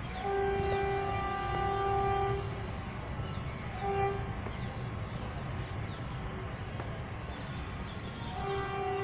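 Train horn sounding a long blast of about two seconds, a short blast about four seconds in, and another blast near the end, over a steady low rumble.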